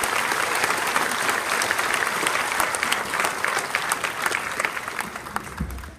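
Audience applauding, a dense patter of many hands clapping that dies away near the end, where a single low thump sounds.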